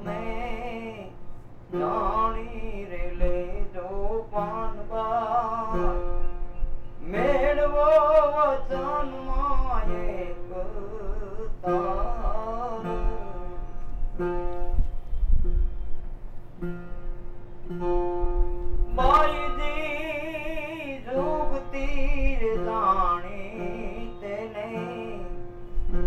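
Gujarati devotional folk song (bhajan) performance: a wavering, ornamented melody over the steady drone of a plucked ramsagar, with tabla and violin accompaniment.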